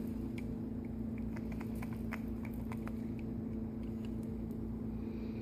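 Faint small clicks and taps of a plastic cleaner bottle being handled and its cap opened, over a steady low electrical hum.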